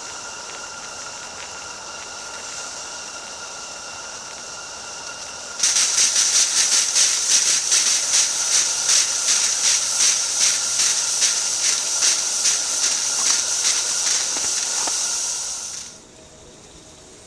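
Small Roundhouse Katie live-steam locomotive: a steady hiss at first, then about five seconds in a much louder steam hiss sets in, pulsing about two to three times a second for some ten seconds, typical of the safety valve blowing off and fluttering, before it cuts off.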